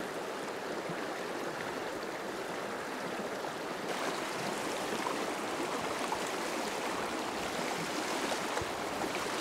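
Shallow, rocky stream running over stones: a steady rush of flowing water.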